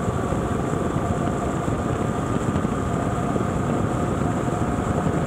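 BMW R 1200 GS flat-twin motorcycle cruising at a steady speed: a constant rush of wind and road noise with the engine's even drone and faint steady whine underneath.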